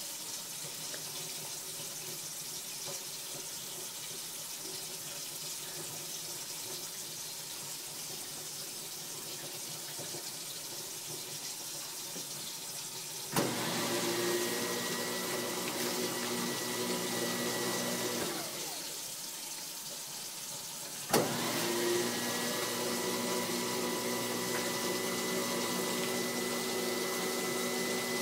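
Water running into the sink, then a newly installed Waste King Legend L-111 1/3 hp garbage disposal switched on with a click, running with a steady hum for about five seconds before winding down. It is switched on again a few seconds later and runs steadily for about seven seconds.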